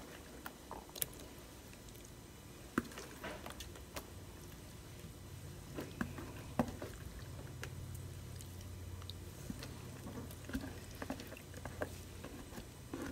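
Soft, scattered clicks and squishes of cheesy ziti pasta mixture being tipped and scraped out of a plastic container into a glass baking dish. A faint low hum comes in for several seconds in the middle.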